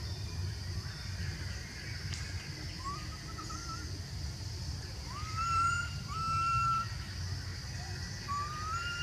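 Young long-tailed macaque crying for its lost mother: four clear, whistle-like coo calls, each rising and then held briefly, one about three seconds in, two close together around five to seven seconds, and one near the end. A steady high insect drone runs behind them.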